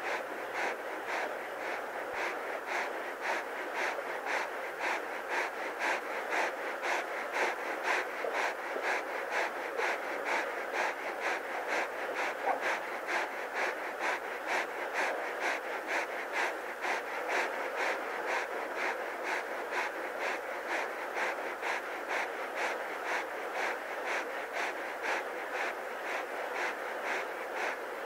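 Lion panting close up, a steady rapid rhythm of about two breaths a second, the open-mouthed panting of a lion shedding heat while resting in the midday heat.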